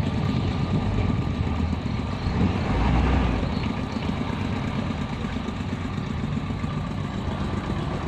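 Tugboat engine running steadily, a continuous low rumble, while the tug hauls a large log through a sluice gate.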